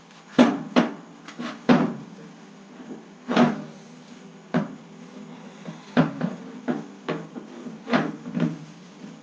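About a dozen sharp knocks at an uneven pace, typical of tapping a bushing out of a transmission pump gear.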